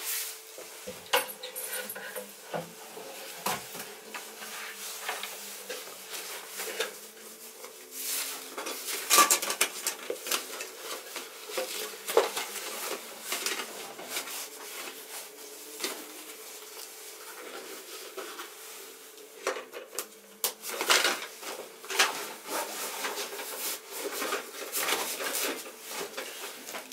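Rustling and irregular clinks and knocks of camping gear being handled and stuffed into a fabric rucksack, over a faint steady hum.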